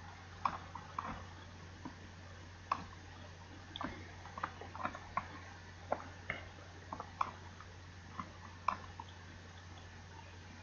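Scattered small, irregular clicks and ticks over a steady low hum.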